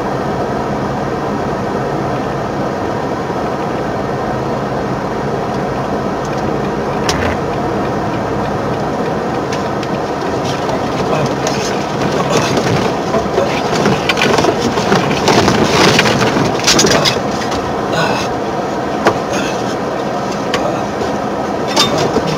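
Steady drone of a truck's engine and road noise in the moving cab, with one sharp crack about a third of the way in. From about halfway through, clusters of crackling and knocking pile up on top of the drone.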